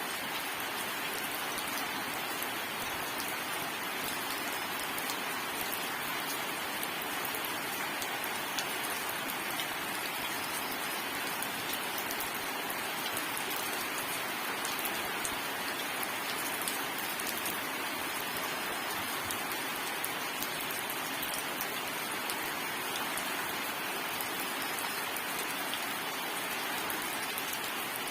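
Steady rain falling: an even hiss with fine drop ticks running through it, no thunder.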